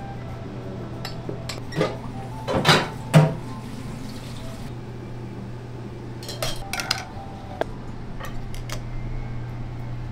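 Dishes and kitchen utensils clinking and clattering in scattered knocks, the loudest about three seconds in and a few more around six to seven seconds in, over a steady low hum.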